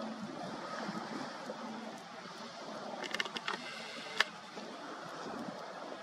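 Wind and lapping water, a steady rushing hiss, with a short run of sharp clicks about three seconds in and one louder click a second later.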